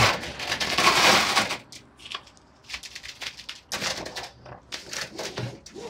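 Fabric truck-cap cover and its Velcro strips being pressed down and handled: a rustling, crackling hiss for about the first second and a half, then scattered light clicks and crackles.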